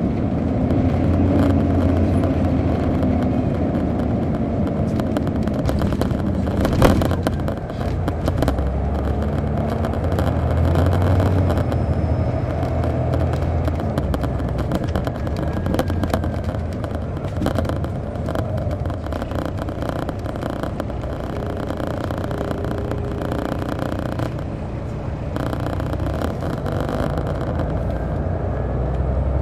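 Detroit Diesel Series 60 engine of a 2002 MCI D4000 coach, heard from the rear seats, running with a steady low drone that shifts a little in pitch and level. There is a sharp knock about seven seconds in.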